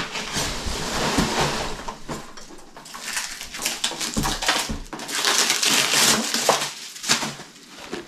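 Rummaging through a cardboard box full of packing peanuts: continuous crunching and rustling of foam and cardboard with quick crackles, as a boxed plastic model kit is lifted out.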